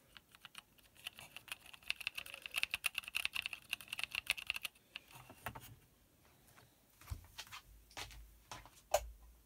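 Typing on a small handheld's mechanical keyboard with low-profile Cherry MX switches. A fast, dense run of key clicks lasts about the first five seconds, followed by slower, scattered keystrokes and a few dull bumps near the end.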